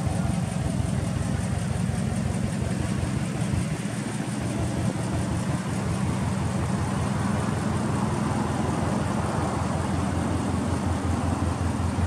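Subaru Impreza WRX (GDA) with its EJ20 turbocharged flat-four engine idling steadily through an aftermarket exhaust muffler.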